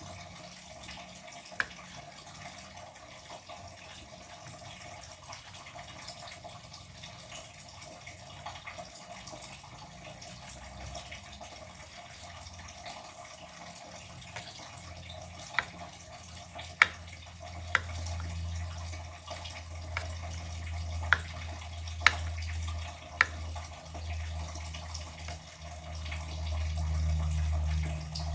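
Water running at a kitchen sink, with a low rush that grows stronger in the second half. Sharp clinks, one near the start and a cluster in the second half, fit dishes or utensils knocking as they are washed.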